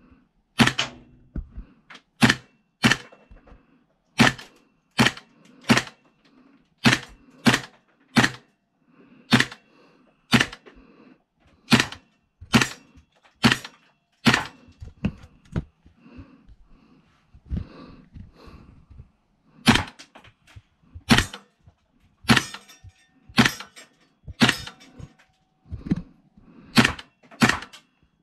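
A long series of sharp cracks, mostly in runs of two or three about 0.7 s apart with short pauses between runs.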